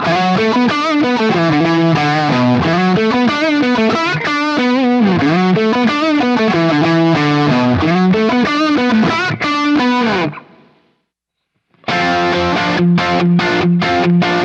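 Electric guitar played through a BSM Supreme overdrive pedal, a crunchy overdriven lead line with notes bent up and down. It stops about ten seconds in, and after a short pause a choppy riff of short, stop-start chords begins.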